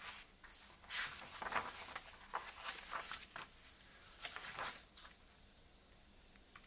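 Paper rustling and scraping as the pages of a paperback picture book are turned and pressed flat by hand, a run of soft irregular rustles lasting about four seconds.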